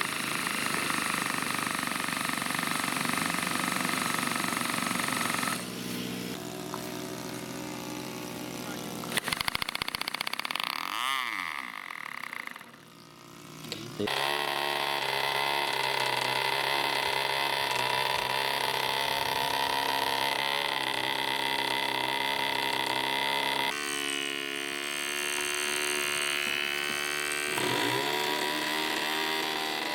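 Small model-aircraft engines running at high revs with a steady buzz. The sound changes abruptly several times, and near the end one engine's pitch swoops down briefly.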